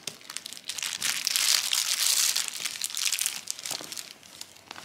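Clear plastic wrapping on a new tote bag's handles crinkling and rustling as the bag is handled and opened, loudest in the middle and dying down near the end.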